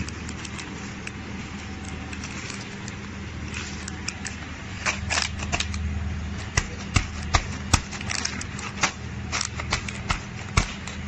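A filled plastic snack bag crinkling and crackling as it is squeezed and turned in the hand, with sharp irregular crackles growing denser from about five seconds in. A steady low hum from the packing machine runs underneath.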